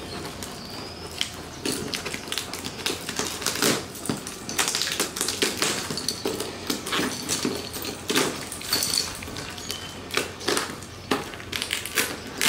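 Gift wrapping being torn and pulled off a package by hand: an irregular run of crackling, ripping and clicking.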